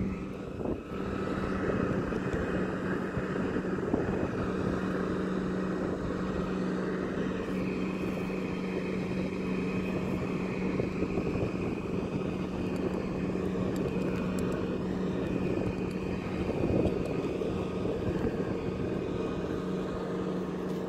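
Steady engine drone of the motorboat towing the parasail, heard from high above it, with wind buffeting the microphone.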